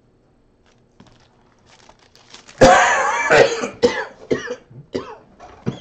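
A man coughing: one loud, harsh cough about two and a half seconds in, then a run of shorter coughs that trail off.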